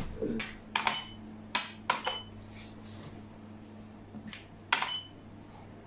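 Xiangqi pieces clacking onto a wooden board as they are moved and set down by hand: a handful of sharp clacks, a couple close together about a second in and two more near two seconds, then one more near the end, over a faint low hum.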